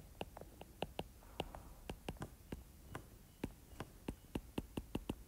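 Stylus tip tapping and clicking on a tablet screen while handwriting, a quick irregular series of light taps, about four a second.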